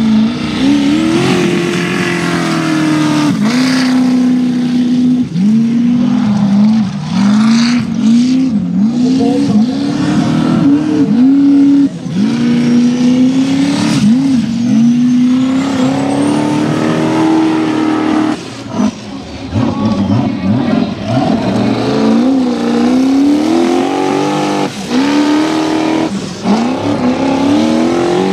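Turbocharged LS1 V8 of a Formula Offroad buggy running at hard throttle, its note surging up in repeated rising revs and dropping sharply as the throttle is lifted and reapplied while the paddle tyres spin in loose sand.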